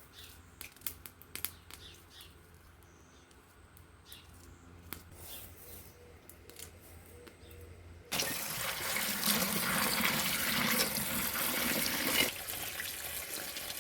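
Faint scattered clicks over a low hum, then about eight seconds in a sudden loud rush of running or pouring water that eases a little near the end.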